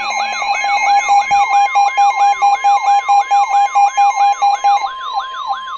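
Emergency alert tones: steady electronic alert tones layered with a rapidly repeating rising siren-like sweep, about three or four sweeps a second. The lower steady tone cuts off about five seconds in while the higher tone and the sweeps continue.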